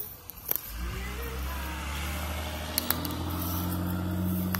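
A motor vehicle's engine running with a steady low hum, coming in about a second in, with a few sharp clicks over it.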